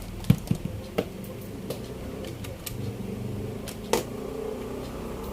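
Sharp clicks and knocks from handling the TV set on the repair bench while it is plugged in for a backlight test. The loudest come about a third of a second in and again at about four seconds, over a low steady hum.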